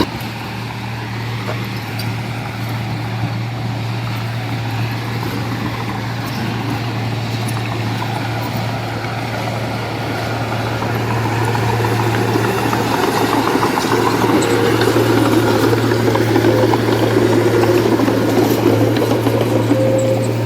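Heavy diesel engine of earthmoving machinery running with a steady low drone, growing louder about halfway through.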